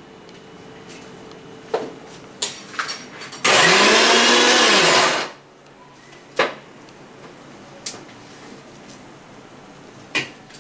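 A spoon clinking now and then against a steel pot of boiling boba, over a steady hum. About three and a half seconds in, a loud whirring noise bursts in for about two seconds, its pitch rising and then falling, and cuts off.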